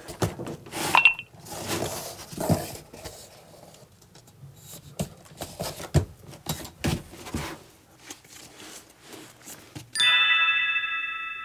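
Cardboard box being handled and set up against a kitchen sink cabinet: scattered knocks, scrapes and rustles. About ten seconds in, a bell-like music chime rings out and fades.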